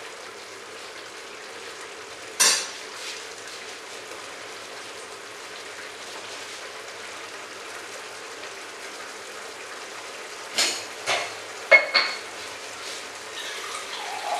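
Thick masala gravy with paneer and mushrooms sizzling steadily in a metal pan over heat turned up a little. A metal spoon clinks against the pan once about two and a half seconds in, then four times in quick succession around ten to twelve seconds in.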